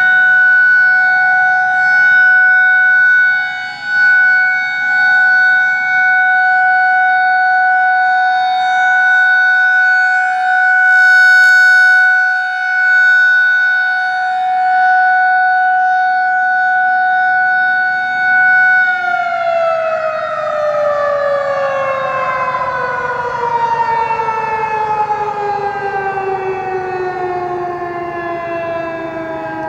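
Federal Signal 2001-SRN electromechanical siren sounding a steady alert tone during a test, its loudness swelling and fading every couple of seconds as the head rotates. About two-thirds of the way through the power cuts and the siren winds down, its pitch falling steadily.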